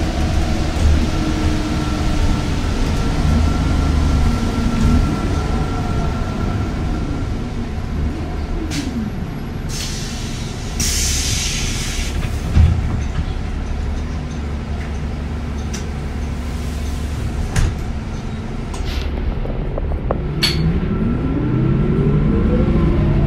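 Engine and road rumble heard from inside a moving vehicle. Its pitch falls and rises as the vehicle slows and speeds up, and climbs again near the end. A short hiss comes about eleven seconds in.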